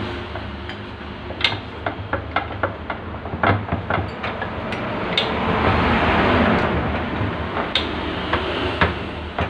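Irregular metallic clicks and knocks from steel parts being set and pressed in a bench vise while a bearing is pressed in, over a steady low hum; a rushing noise swells up and fades away around the middle.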